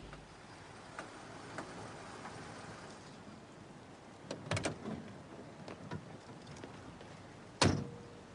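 A few light clicks and knocks, with a cluster of them about halfway through, then one loud thump near the end: a car door being shut.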